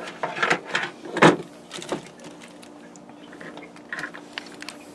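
Camera cable plugs being handled and pushed through a drilled hole in a scrap of wood: a few sharp knocks and rubbing in the first two seconds, then a few small clicks.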